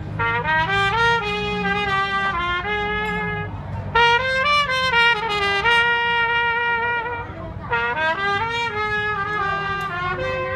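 A trumpet played solo: a melody in three phrases, with short breaks about three and a half seconds in and again near seven and a half seconds.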